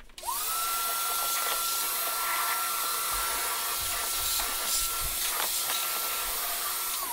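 Vacuum cleaner switched on, its motor rising to speed and then running steadily with a rushing hiss of air through the hose, with a few light knocks as the nozzle works inside the trunk lid. It is switched off near the end, the motor winding down in pitch.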